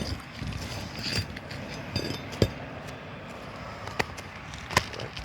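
Roof shingles being handled: a few sharp clicks and knocks, about two and a half, four and five seconds in, over a steady rustling background.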